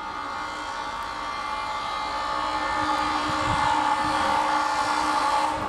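ChS7 electric locomotive approaching with a passenger train, a steady mechanical whine over a low rumble, slowly growing louder as it nears. The sound changes suddenly near the end.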